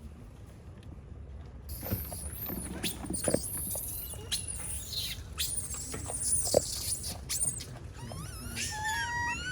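Monkeys, likely long-tailed macaques, giving many high-pitched sliding squeals and chirps, beginning about two seconds in, with a rising series of whistle-like calls near the end.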